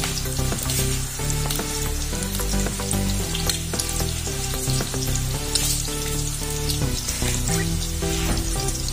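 Breaded shrimp nuggets frying in hot oil in a pan, a steady sizzle with dense crackling. Background music with changing notes plays underneath.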